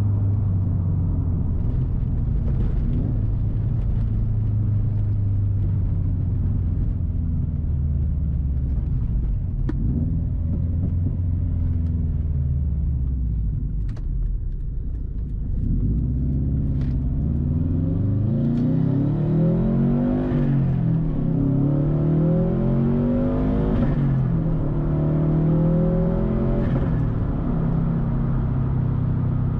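2013 Subaru WRX STI's turbocharged flat-four engine running through a titanium Tomei Expreme Ti exhaust while driving. It holds a steady note for about half the time and eases off briefly. Then it accelerates several times, its note rising and dropping with each gear change.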